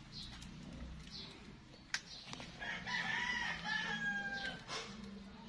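A rooster crowing once, a long call of about two seconds that sags slightly in pitch near its end. A single sharp click comes just before it, a little under two seconds in.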